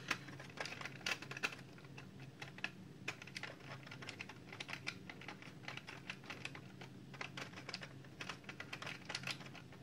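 Screwdriver working the screw terminals of a variable frequency drive: a quick, irregular run of light clicks and scrapes of metal on plastic, over a faint steady low hum.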